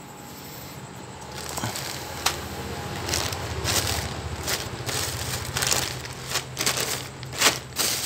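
Clear plastic bags crinkling and rustling as they are handled, in irregular crackles that start about a second and a half in and grow louder.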